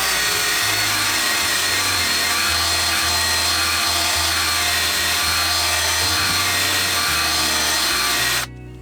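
Drill-powered blade sharpener grinding the cutting edge of a steel lawn mower blade: a steady grinding noise with a thin, high, steady whine over it, cutting off abruptly near the end.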